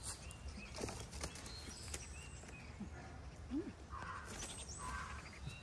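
Faint outdoor ambience: scattered short bird chirps and small calls, with a few light clicks and taps over a low steady hum.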